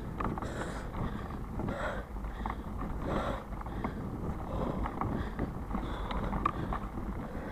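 Riding noise from a mountain bike going along a muddy, leaf-strewn dirt trail, heard from the handlebars: a steady low rumble of the tyres on the ground, with scattered small clicks and knocks from the bike.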